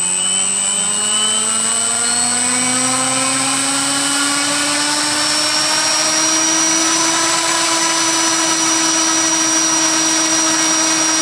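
Small RC electric motor driven by an electronic speed controller, spinning up under a slow throttle ramp. Its whine rises steadily in pitch for about the first seven seconds, then levels off near full speed.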